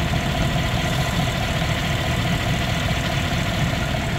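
2015 GMC Yukon's V8 engine idling steadily, heard close up with the hood open, warm and running after its cooling system has been refilled and bled.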